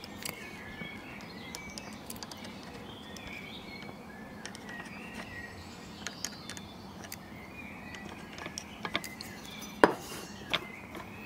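Light, scattered metallic clicks and taps as a small oil can is worked against a Mamod MM2 model steam engine to oil it, with two louder clicks near the end. Birds chirp in the background.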